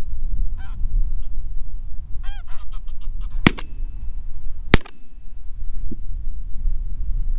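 Geese honking a few times, then two shots from a Browning A5 12-gauge shotgun about a second and a quarter apart, each a sharp crack with a short echo. A steady low rumble runs underneath.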